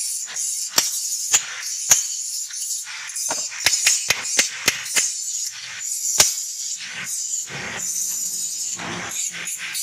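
Hand hammer striking a steel plate held in tongs on a steel post anvil: sharp metal clanks at an uneven pace, with a quick run of blows around the middle.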